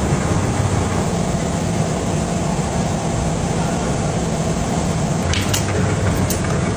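Shopping-bag production machinery running with a steady hum and hiss, with a few short sharp clicks about five and a half and six seconds in.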